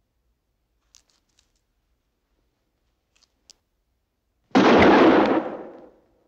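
A single revolver shot about four and a half seconds in, sudden and loud, its echo fading out over about a second and a half. A few faint clicks come before it.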